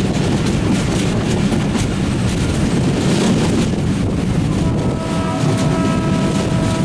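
Passenger train running at speed, heard from on board: a steady rumble and rush with wheels clicking over the rail joints. A steady tone of several held notes joins about five seconds in.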